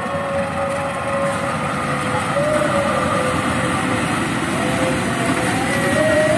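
A CC206 diesel-electric locomotive passes hauling a container freight train. Its engine gives a steady, slightly wavering hum over the rumble of the wagons, and the hum swells and rises a little near the end.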